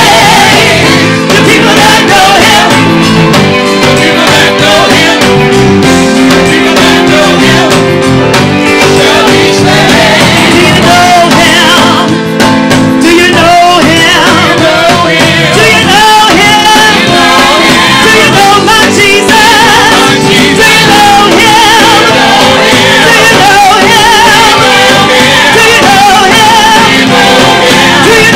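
Live gospel praise-and-worship music: loud, steady instrumental accompaniment with sung voices wavering over it.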